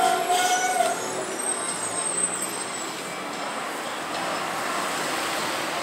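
Marcopolo Torino city bus on a Volkswagen 17.260 chassis driving past and turning, its engine running over street traffic noise, with a brief steady high tone in the first second.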